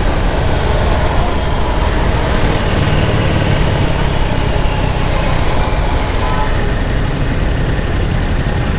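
Yamaha YZF-R7 sport bike on the move: its engine and the wind blend into a steady, unbroken noise.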